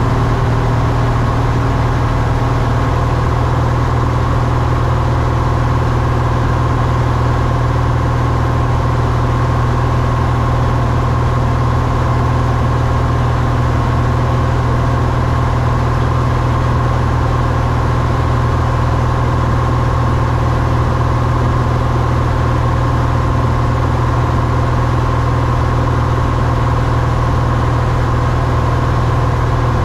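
Cessna 172's piston engine and propeller running at a steady drone, heard from inside the cabin.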